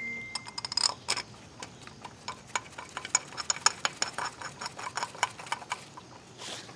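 Hand ratchet wrench clicking in quick, uneven strokes as a sealant-coated bolt is run down into a chrome thermostat housing.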